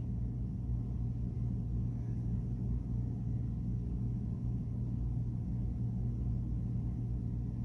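A steady low hum, even and unchanging throughout.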